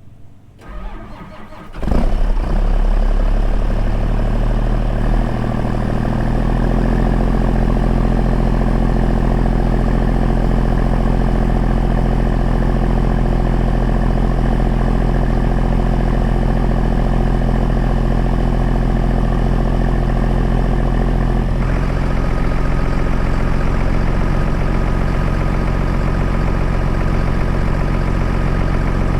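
Tractor's diesel engine cranked briefly and starting, catching about two seconds in and then idling steadily. The idle settles within a few seconds, and the note changes slightly about twenty-two seconds in.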